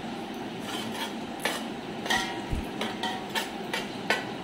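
Metal spoon scraping and clinking against the bottom and sides of a metal cooking pot as it spreads thick gravy around, a run of short scrapes, about two a second.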